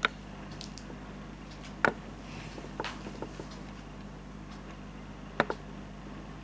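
Room tone: a steady low electrical hum with a few sharp clicks or taps scattered through, the loudest right at the start, about two seconds in and about five and a half seconds in.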